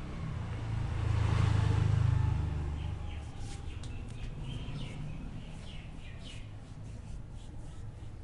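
Street ambience: a vehicle passes with a low rumble that swells and fades over the first three seconds, then birds chirp in short, irregular calls.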